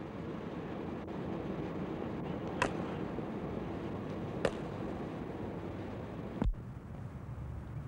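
Two sharp cracks of a cricket bat striking the ball in the practice nets, a couple of seconds apart, over a steady hissing background; a dull thump follows near the end.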